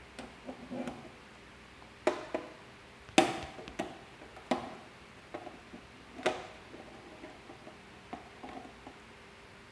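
Patch cord plugs being pushed into the sockets of an electronics trainer board and handled: a series of irregular sharp clicks and taps, the loudest about three seconds in.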